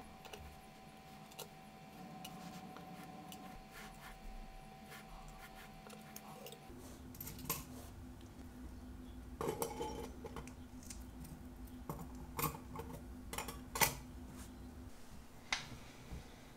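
Light metallic clinks and taps of small watch-movement parts and stainless mesh cleaning baskets being handled, over a faint steady hum.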